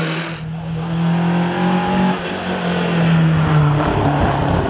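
Rally car engine running hard through a corner, its note held steady, dipping briefly about two seconds in, then rising again, with a rougher noise near the end.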